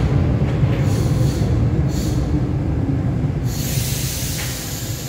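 Subway train running, a steady low rumble with a rush of hiss rising over it about three and a half seconds in.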